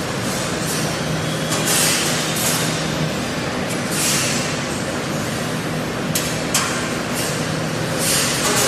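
Sausage production-line machinery running: conveyors and cutting machines make a steady mechanical din, with a low hum that drops out about three seconds in and several short bursts of air hissing.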